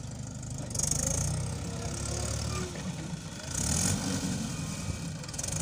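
Diesel tractor engines idling together in a steady low rumble. Two short bursts of hiss break over it, about a second in and again past three and a half seconds.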